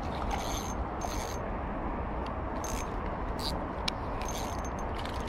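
Spinning reel being cranked to bring in a hooked fish: short spells of whirring from the rotor and gears every second or so, with a sharp click about four seconds in, over a steady hiss.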